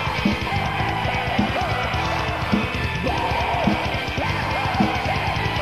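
Raw black metal demo recording from 1995: heavily distorted guitars over fast drumming, filling the whole sound with a dense, steady wall.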